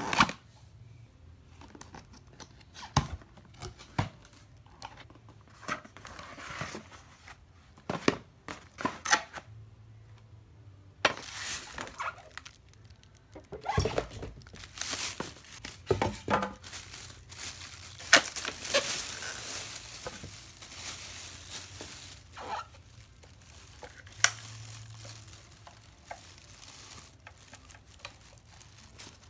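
Unboxing handling noise: a few knocks and scrapes of a cardboard box, then, about eleven seconds in, a plastic bag crinkling and styrofoam packing rustling for about ten seconds as the appliance is pulled out, followed by a few clicks and knocks of the appliance being handled.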